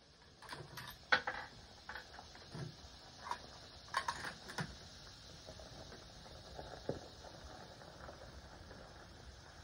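Scattered light clicks and knocks of equipment being handled between shots, bunched in the first half with the sharpest about a second in and a quick run of them around four seconds in.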